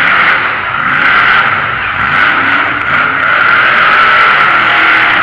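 Monster truck's supercharged methanol-fuelled engine running hard, its pitch rising and falling as the driver works the throttle.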